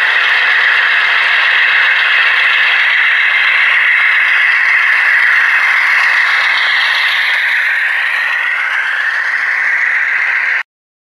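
Model railroad freight train rolling by, its cars and wheels making a steady rattling and clicking on the track. Whining tones that slide up and down in pitch join in as the locomotives pass, and the sound cuts off suddenly near the end.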